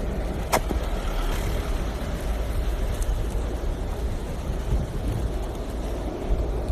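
Skateboard wheels rolling on asphalt: a steady low rumble mixed with wind on the microphone, with one sharp click about half a second in.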